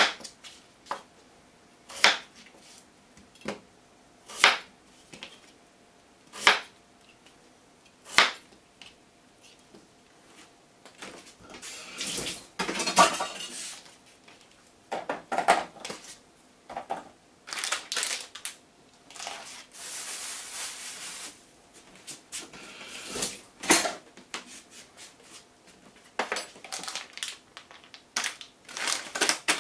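Kitchen knife chopping through daikon radish onto a plastic cutting board, separate sharp strokes every second or two. Later come denser rustling and clatter as the pieces are handled and put into a plastic bowl.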